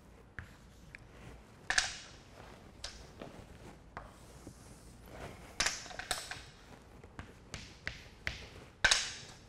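Chalk tapping and scratching on a chalkboard as numbers and signs are written: a string of sharp taps with a few longer scratchy strokes, the loudest about two seconds in and near the end.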